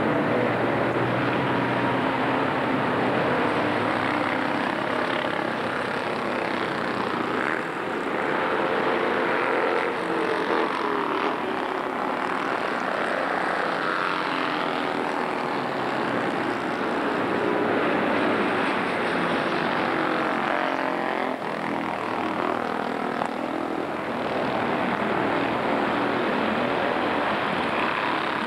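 Engines of historic racing cars and a motorcycle passing on a race track. Several overlapping engine notes rise and fall as each vehicle goes by, with no break.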